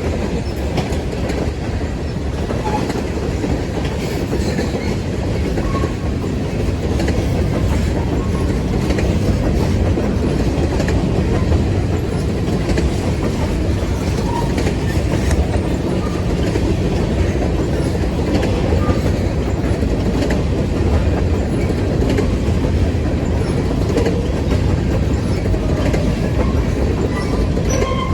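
Freight train rolling past, its cars' wheels clicking over the rail joints in a steady, loud rumble.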